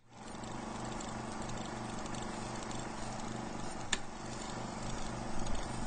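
Film projector running: a steady whirring clatter with an even flutter of about three beats a second and light crackle, and a single sharp click about four seconds in.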